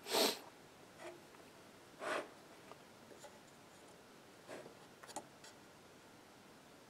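A short breathy hiss at the start, then a few faint, brief rustles and light touches of hands moving over the open electronics enclosure, over a low steady hiss.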